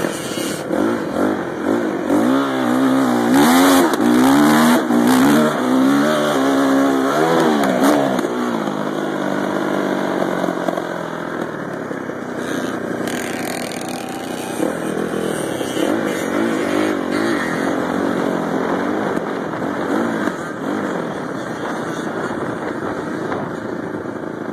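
Dirt bike engine running while being ridden, its pitch rising and falling repeatedly with the throttle for several seconds before settling into steadier running. The rider takes it for a fuel problem, running rich or a leak in the exhaust or air box.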